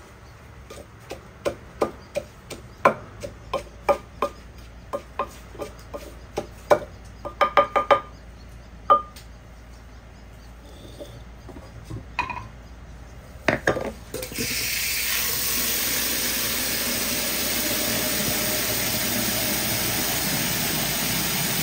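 A run of light clinks and knocks of kitchen things handled on a counter, a few with a short metallic ring. About two-thirds of the way through, a wall tap is turned on and water runs hard into a basin with a steady, loud rush.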